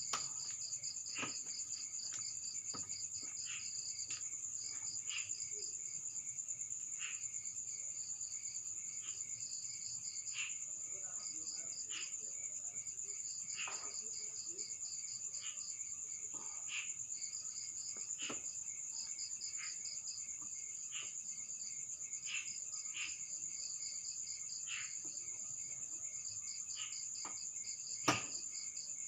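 Crickets chirping in a continuous high, pulsing trill, with scattered sharp clicks and one louder click near the end.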